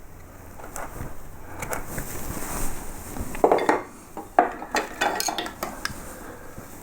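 Steel woodcarving gouges and chisels clinking against one another as they are handled and sorted on the bench in search of the right tool: a string of sharp metallic clinks, most of them bunched in the middle.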